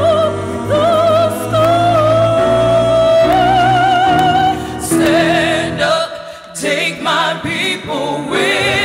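A woman sings long held notes with wide vibrato over upright bass, cello and piano. About six seconds in, the instruments thin out and several voices sing together.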